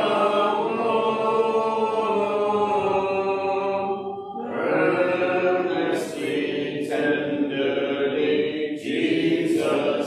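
Congregation singing a hymn a cappella, many voices holding long notes together, with a brief break between phrases about four seconds in.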